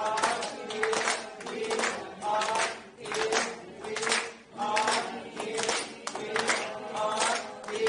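Voices singing a short rising phrase that repeats about every two and a half seconds, over steady rhythmic hand-clapping.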